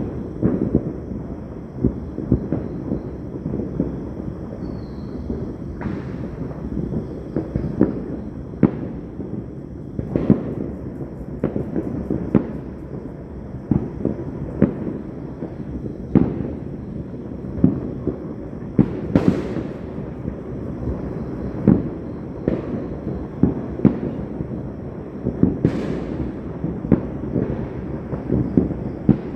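Fireworks and firecrackers going off all around: a constant rumble of distant bangs with many sharper pops nearer by, and a couple of louder cracks in the second half.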